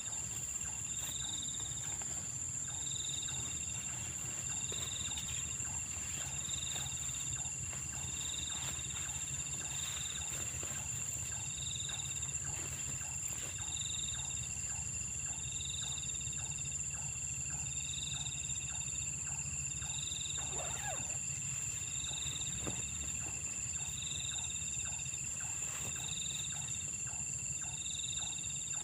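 Night chorus of insects and frogs: a steady high insect trill, another call pulsing about every two seconds, and regular clicking calls a couple of times a second, over a steady low rumble.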